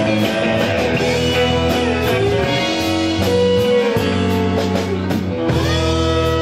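Live blues-rock band in an instrumental break: a guitar lead of held notes that bend and slide in pitch, over electric bass and drums with steady cymbal strokes.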